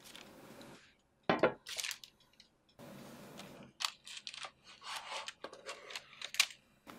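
A metal baking tray set down on a wooden cutting board with a knock about a second and a half in, then baking paper rustling and crinkling and a spatula scraping as a fried potato pancake is slid onto the lined tray, with a sharp tap near the end.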